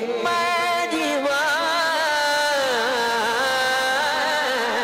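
A boy's solo voice singing a manqabat, a Sufi devotional song, into a microphone. He draws out long held notes with wavering ornaments, and the line slides down about three seconds in.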